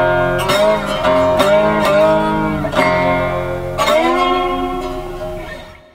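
Short outro music: a run of strummed chords on a plucked string instrument. The last chord rings out and fades away near the end.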